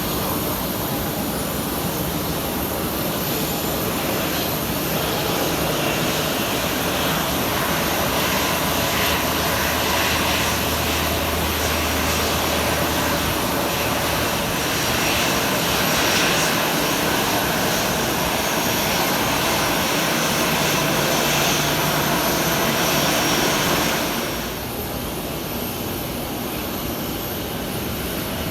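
Aircraft engines running with a steady, continuous noise that eases off noticeably near the end.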